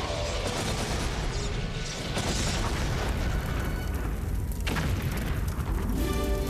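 Sound-effect explosions, a dense low booming, mixed over a dramatic music score, with one sharp hit about four and a half seconds in; after that, held music notes come to the fore near the end.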